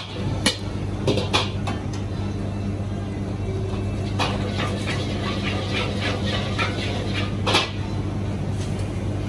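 Metal ladle knocking and scraping in a steel wok over a commercial gas wok range, a few sharp knocks spread through, with a stretch of quick crackling sizzle in the middle. A steady low hum from the range runs underneath.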